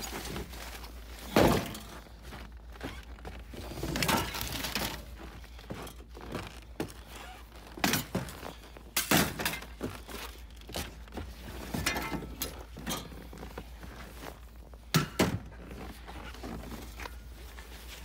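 Pieces of scrap metal being handled and set down: a run of irregular thunks and knocks, the loudest about a second and a half in and again about fifteen seconds in.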